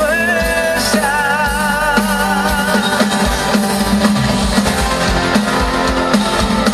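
Band music with drums and guitar under a sung vocal line, whose held notes waver with vibrato for the first three seconds or so; the instruments carry on after that.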